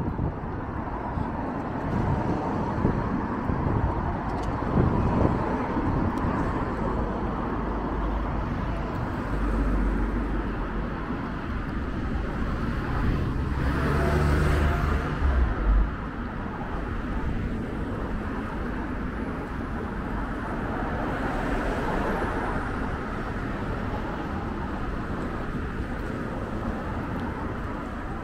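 City street traffic noise. A vehicle passes close about halfway through, with a low rumble.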